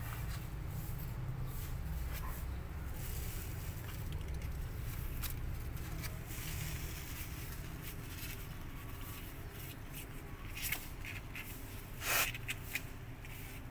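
Two kittens scuffling and wrestling on a sheet of cardboard: scattered scratches and scrapes of claws and paws, with a louder scrape near the end, over a steady low hum.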